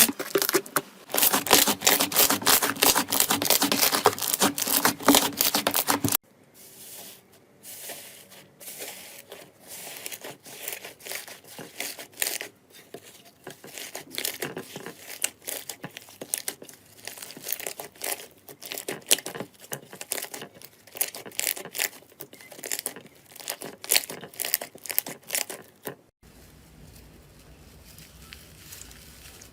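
Slime being handled for ASMR, giving dense crackling, popping and crinkling clicks. The clicks are loud and packed for about six seconds, then quieter and sparser, and turn to a soft hiss near the end.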